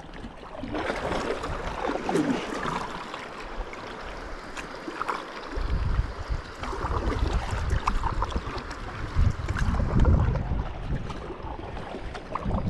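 Water splashing and lapping around a kayak on a river. Wind rumbles on the microphone from about halfway through.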